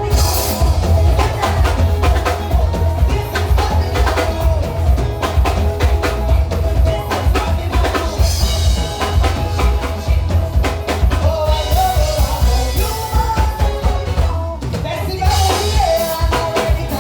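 Live soca music played loud through a stage sound system, driven by a heavy bass and drum-kit beat.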